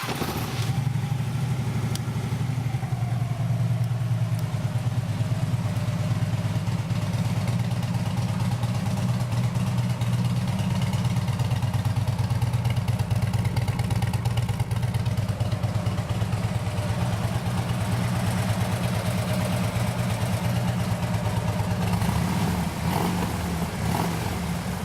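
Harley-Davidson Ultra Limited's 103-cubic-inch fuel-injected Twin Cam V-twin idling steadily through aftermarket slip-on mufflers, not real loud but with a little extra bass. The idle eases down slightly in the first few seconds.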